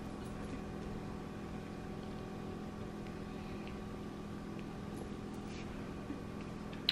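Quiet room tone: a steady low hum with faint held tones, and a single faint click about six seconds in.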